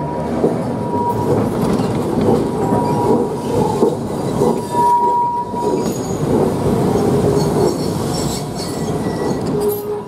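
Vintage 1904 tram car running along street track, a steady rattling rumble of wheels on rails. A high wheel squeal rings out at the start and again about halfway through.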